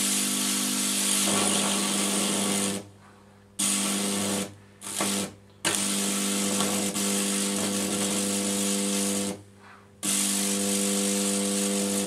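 High-voltage arc from a microwave oven transformer burning through an orange: a loud electrical buzz with a crackling hiss. It cuts off sharply and starts again four times.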